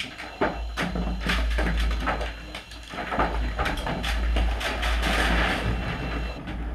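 A self-tipping workshop table, its top tilted by a linear actuator, dumping a pile of tools, boxes, bottles and junk: a long clatter of knocks, bangs and sliding objects over a low rumble, dying away near the end as the tabletop is left bare.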